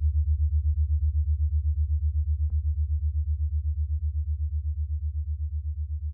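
A low electronic drone that pulses evenly about seven times a second and slowly fades, with a few faint clicks over it.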